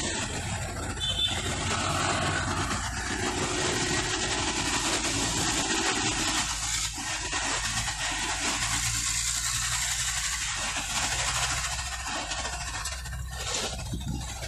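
Engine drone and road noise heard from inside a moving vehicle, steady and without a break.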